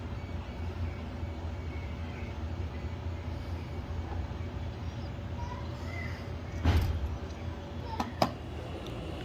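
Steady low hum. A knock comes about two-thirds of the way through, and two sharp clicks follow close together near the end.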